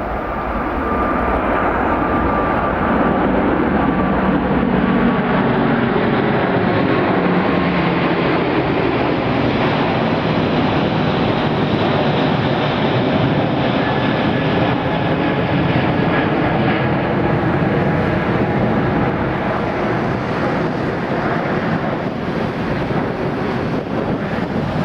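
Airbus A380's four jet engines at takeoff thrust: a loud, steady roar that swells over the first few seconds and then holds.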